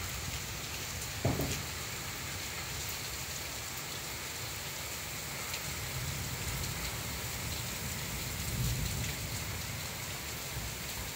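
Heavy rain falling in a steady hiss, with a short gust of wind buffeting the microphone about a second in and a weaker one near the end.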